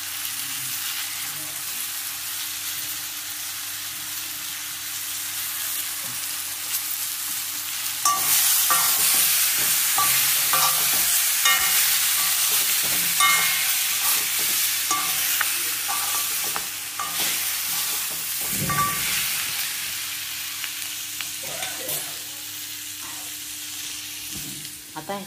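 Masala-stuffed brinjals sizzling in hot oil in a metal kadhai, with no water added yet. About eight seconds in the sizzle grows louder and short scrapes and clicks on the pan come in as they are stirred, easing off again in the last few seconds.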